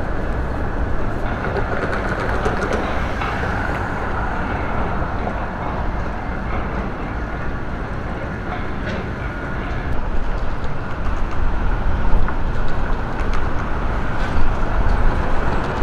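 Steady rumbling road noise of a moving vehicle, growing louder and rougher about ten seconds in.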